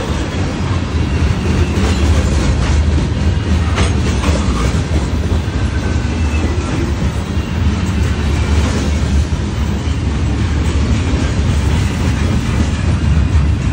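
Freight train of covered hopper cars rolling past close by: a steady, loud rumble of steel wheels on the rails with scattered sharp clicks.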